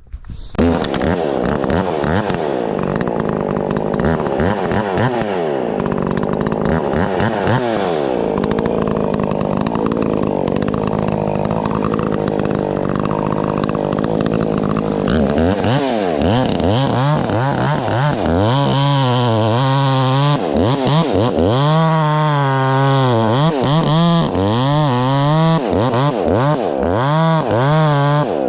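Two-stroke chainsaw cutting into a locust tree, starting about half a second in. The engine speed keeps dropping under load and rising again, swinging more widely in the second half.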